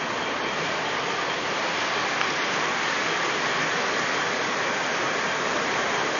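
Steady, even rushing hiss of background room noise, with a faint click about two seconds in.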